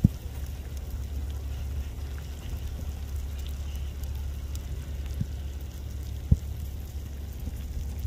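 Basaltic pahoehoe lava crackling and hissing around a large rock resting on its hot surface, over a steady low rumble. A few sharp pops from escaping gas break through, the loudest about six seconds in.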